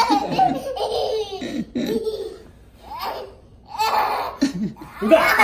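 Toddler laughing hard in repeated bursts, with a short lull in the middle before the laughter picks up again.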